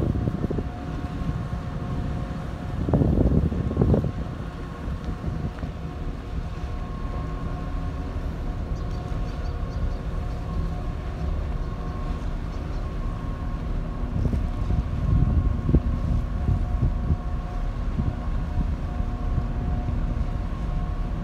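Steady hum of a berthed long-distance car ferry's onboard machinery, several held tones over a low rumble. Wind buffets the microphone in gusts, strongest about three to four seconds in.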